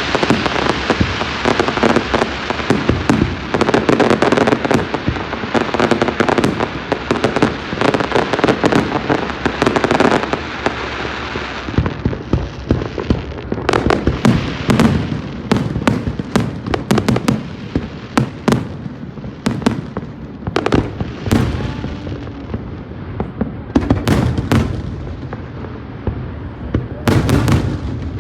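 Fireworks going off: a dense, continuous crackle of overlapping bangs for about the first twelve seconds, then a run of separate sharp bangs.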